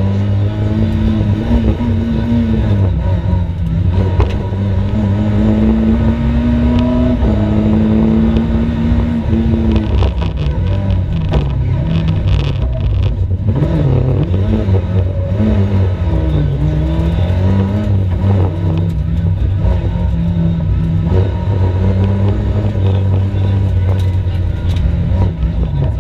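Race car engine driven hard, its revs repeatedly climbing, holding and dropping back.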